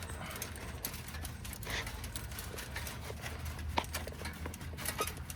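Scattered, irregular clicks and light knocks of tools and parts being handled on a motorcycle during oil-filter work, over a steady low hum.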